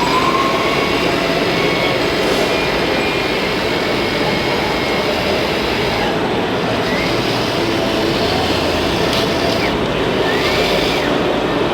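Small electric motors and hydraulic pumps of RC construction models running in a steady, busy din, with short rising whines as the machines load up and work.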